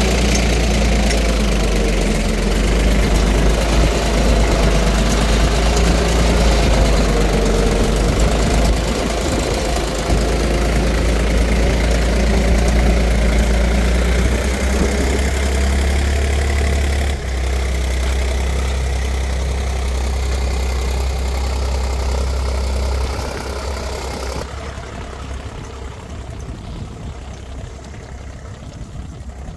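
Tractor diesel engine running steadily while pulling a seed drill through tilled soil. The sound drops in level and fades over the last several seconds.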